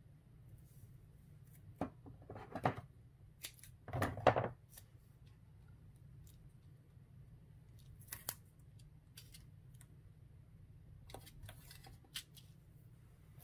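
Crisp paper and tape handling as double-sided tape is applied to a shaker card: two short rustling, snipping bursts about two and four seconds in, then a few light clicks and taps.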